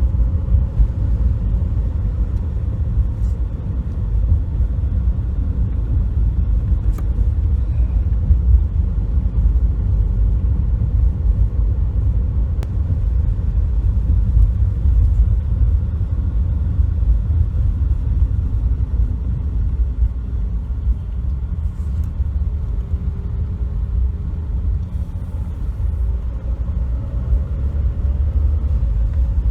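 A 2007 Toyota Corolla being driven: a steady low rumble of road and engine noise with no clear knocks standing out.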